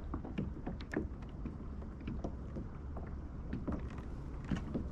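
Water lapping against a fishing kayak, with a steady low rumble and scattered light knocks and ticks.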